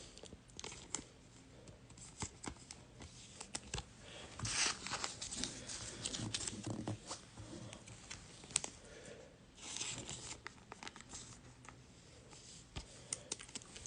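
Faint handling of trading cards: scattered light clicks and short rustles as the cards are flipped and slid against one another, with a couple of slightly louder rustles partway through.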